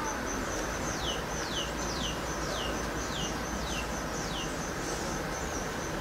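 A high chirp pulsing evenly several times a second, with a bird calling a run of about seven short whistled notes, each falling sharply in pitch, roughly two a second from about a second in.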